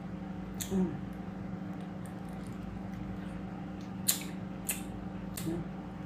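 Steady low electrical hum made of several steady tones, with a few faint clicks and taps scattered through it.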